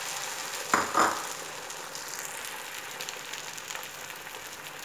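Beaten egg mixture for an omelette sizzling in desi ghee on a hot flat iron griddle (tawa), a steady hiss that slowly dies down as the egg sets. Two short knocks come about a second in.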